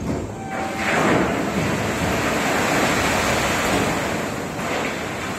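Coal pouring through a bunker's loading chute into an open railway wagon: a steady, loud rushing that swells about a second in and eases slightly near the end, after a short knock at the start.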